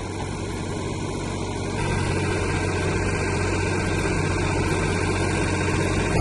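Old Ford backhoe's engine running steadily, getting a little louder about two seconds in as it works.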